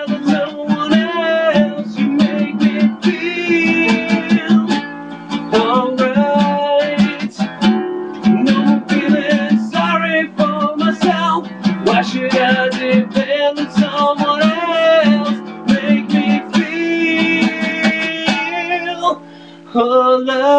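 Two acoustic guitars played together, one strummed hard and percussively and the other picked, with a man singing over them. The playing briefly thins out near the end before coming back in full.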